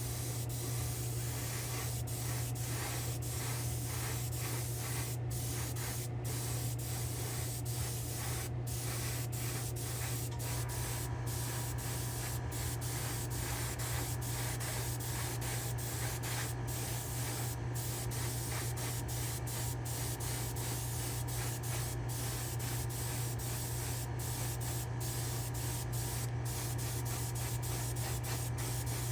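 Airbrush hissing steadily as clear coat is sprayed onto a diecast car body, with very brief breaks in the hiss, over a steady low hum.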